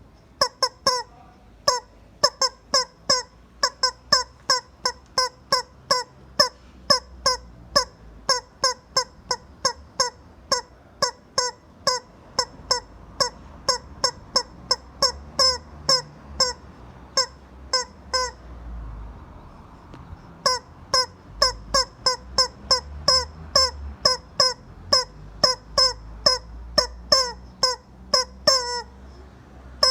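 Rubber chicken squeaker toy squeezed again and again, giving short honking squawks about two or three a second. The squawks stop for about two seconds midway, then resume and end with one longer squawk.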